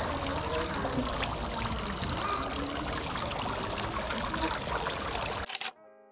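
Running water splashing steadily, with faint voices behind it. It cuts off suddenly about five and a half seconds in, giving way to a quiet, held electronic music chord.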